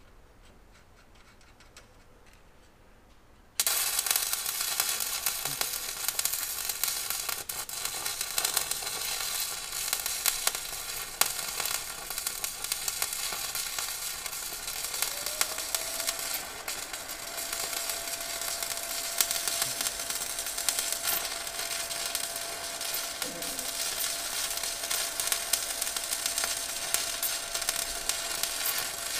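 Electric arc welding: the arc strikes about three and a half seconds in and then crackles and sizzles steadily as a weld bead is laid on steel mud-flap brackets. A faint steady whine joins about halfway through.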